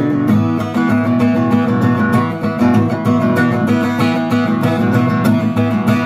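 Acoustic guitar strummed in a steady rhythm, with no voice.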